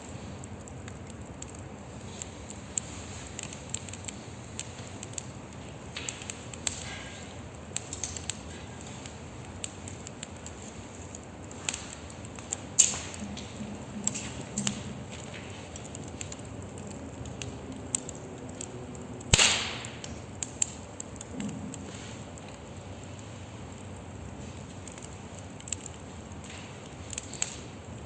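Burning wood in a fire pit crackling: a steady soft hiss with scattered sharp pops, two of them much louder, one near the middle and one about two-thirds through.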